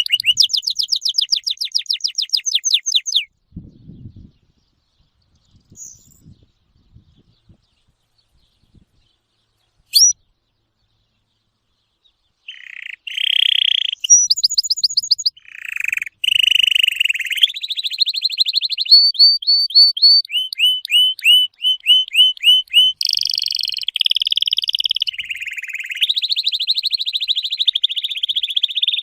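Birdsong: fast trills of short, high, repeated chirps. They stop after about three seconds and are nearly silent for several seconds apart from one brief chirp. Then they resume as dense, overlapping trills and warbled phrases to the end.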